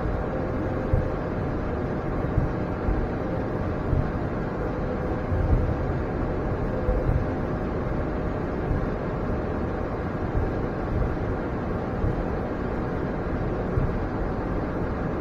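Steady rumble and hiss inside the cockpit of an Embraer E175 regional jet as it taxis, with occasional light low bumps as it rolls along.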